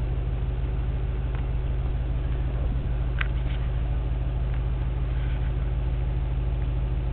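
Car engine idling steadily, heard at the tailpipe as a low, even exhaust note. A brief faint high chirp comes about three seconds in.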